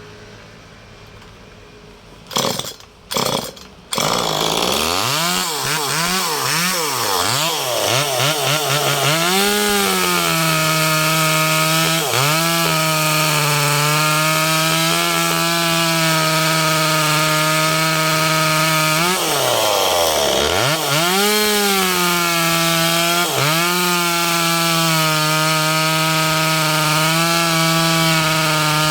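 Ferrino two-stroke chainsaw starting after two short loud bursts, revved up and down, then held at full throttle while cutting firewood. The engine note dips briefly a few times, sagging and recovering under the cut.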